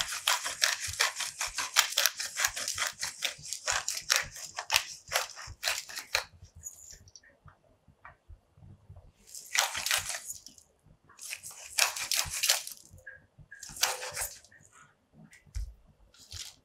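Hand-twisted pepper mill grinding black peppercorns: a fast run of crunchy clicks for about six seconds, then three shorter bursts after a pause.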